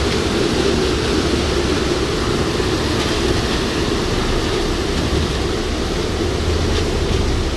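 Steady rushing noise of a river in flash flood, fast muddy water running high under a steel bridge, mixed with the low running rumble of the vehicle crossing it.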